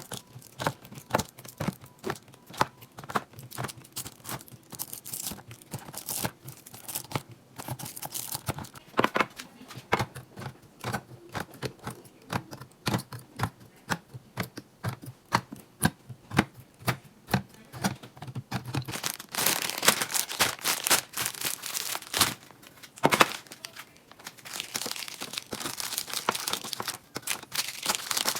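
Plastic packaging crinkling and rustling while items are handled, with many sharp clicks and taps throughout. The crinkling grows denser about two-thirds of the way in and again near the end.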